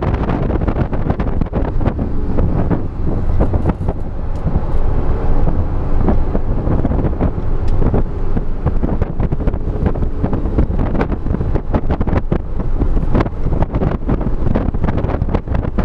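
Porsche 911 at track speed heard from inside the cabin: steady engine and road noise with constant sharp rattles and knocks, and wind buffeting on the microphone.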